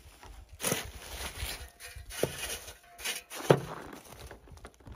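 Footsteps in snow and rummaging as things are shifted about, with two sharp knocks, the second about three and a half seconds in and the loudest.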